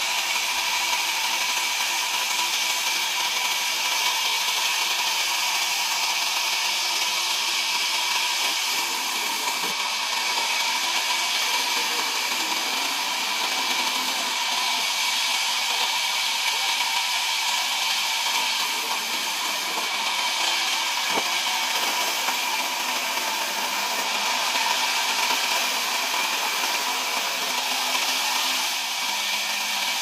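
Sawmill band saw running steadily while ripping planks, a continuous hissing whine with several steady tones that does not let up.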